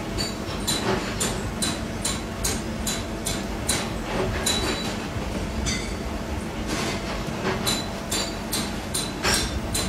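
Laser cutting a steel motorcycle sprocket: a steady low machine hum with sharp, ringing crackles about twice a second at uneven intervals.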